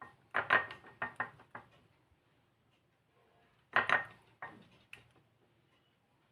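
A spoon clinking and knocking against a bowl as a mixture is stirred: a quick run of clinks in the first second and a half, then another short run about four seconds in.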